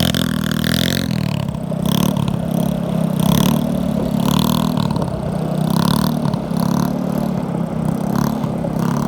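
Small scooter engine running at a fairly steady speed, a continuous low drone that hardly rises or falls.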